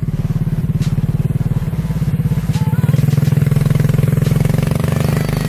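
Honda GX200 single-cylinder four-stroke engine on a go-kart running at high revs under load as the kart pushes through mud, a loud, steady, fast pulse.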